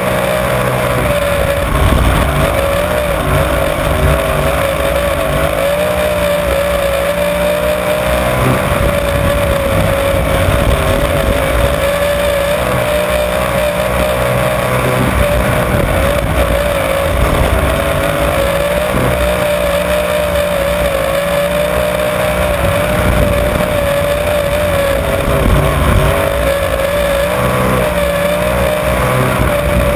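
Onboard sound of a winged dirt-track sprint car's engine running flat out at high revs, its pitch wavering slightly up and down with the throttle through the turns.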